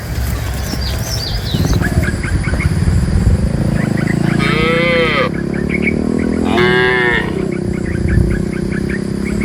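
Cattle mooing: one long low moo runs through the middle, and two louder, rising-then-falling calls come about halfway and about two-thirds of the way in.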